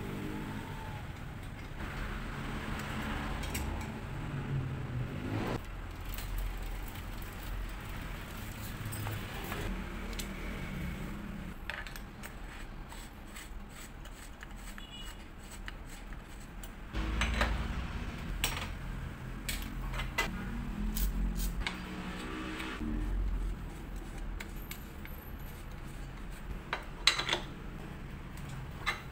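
Small metal clinks and ticks of hex keys and a pedal wrench against a fixed-gear bicycle's axle, crank and pedal as they are worked on, over a low rumble of street traffic that swells now and then.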